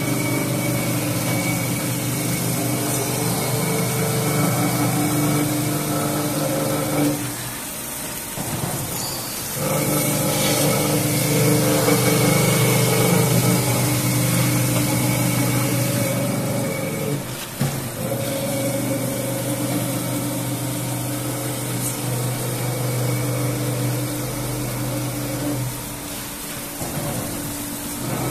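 Knife grinding machine running: the electric motor and grinding wheel on the travelling head hum steadily as they grind along a long straight blade. The sound drops away briefly a few times, around 8, 17 and 26 seconds in.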